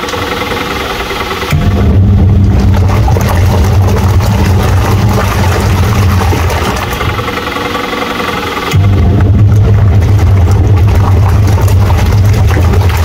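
Haier twin-tub washing machine's wash motor running with a steady low hum. It starts up about a second and a half in, winds down around the middle, and starts again a couple of seconds later, typical of a twin-tub wash cycle pausing and reversing the pulsator.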